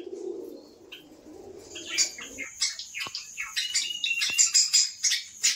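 Java sparrows chirping in rapid, overlapping high calls, starting about two seconds in. Before that there is a low murmur.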